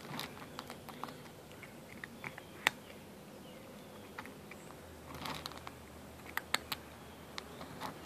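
Cat eating dry kibble from a metal bowl: irregular crunches and sharp clicks, with one louder click about two and a half seconds in and a quick run of them between five and seven seconds.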